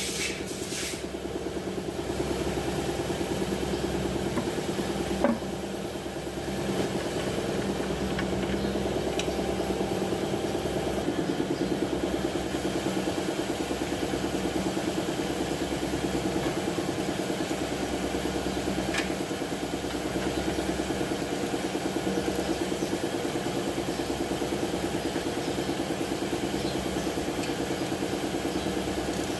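Nissan Navarra engine idling steadily, with one short sharp click about five seconds in.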